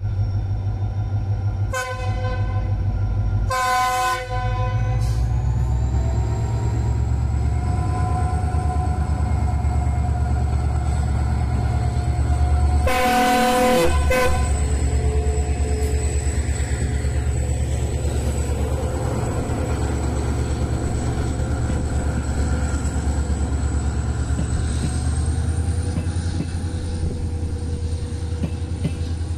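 WDG4 diesel-electric locomotive (EMD 16-cylinder two-stroke) running under load as it approaches and passes, with a steady low rumble and a thin high whine. Its horn sounds in two short blasts in the first few seconds and again for just over a second as the locomotive goes by near the middle, after which the coaches roll past.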